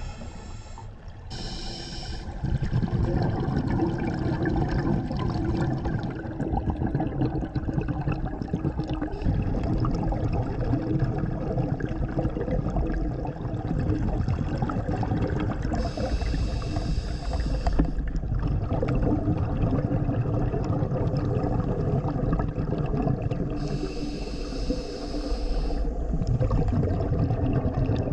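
Underwater sound picked up through an action-camera housing: a steady, muffled rush of water, with a scuba diver's regulator exhaling streams of bubbles in three hissing bursts of about two seconds, several seconds apart.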